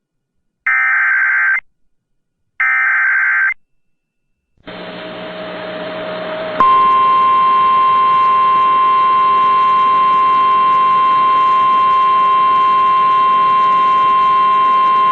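NOAA Weather Radio alert tones: two short, harsh bursts of SAME header data, then a couple of seconds of radio hiss, then the steady 1050 Hz warning alarm tone held for about nine seconds over background hiss.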